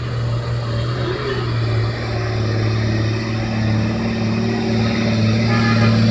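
Heavy truck's diesel engine running under load in a low gear, a steady drone that grows louder as the truck comes closer.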